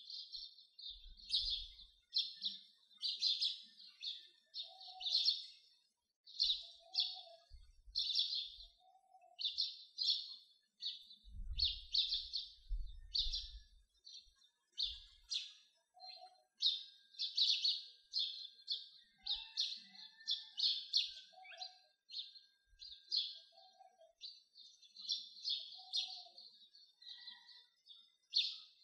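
Birds chirping: quick, bright chirps repeated several times a second without pause, with a softer, lower call every couple of seconds.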